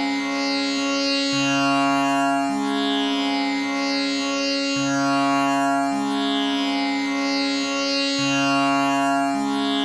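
Tanpura drone tuned to C-sharp (Pa–Sa–Sa–low Sa), its strings plucked in turn in an unbroken cycle that repeats roughly every three and a half seconds. Each note rings into the next with rich overtones.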